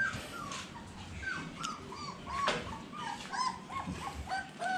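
Phu Quoc ridgeback puppies whimpering and squeaking in a rapid string of short, high, falling cries, with one short sharp sound about halfway through.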